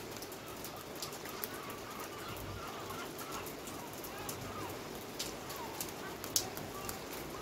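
Steady heavy rain falling, with a bird calling on and off through the first five seconds and once more near the end. Scattered sharp ticks of drops sound over the rain, the loudest a little over six seconds in.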